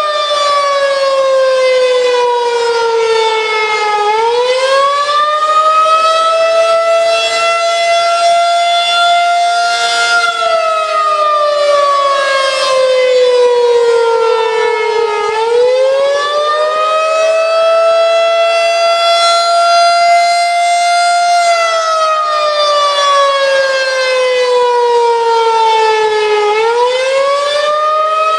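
Federal Signal 2001-SRN electromechanical tornado siren wailing loudly. Three times its tone slides steadily down over about five seconds, then swoops back up within a second and holds high.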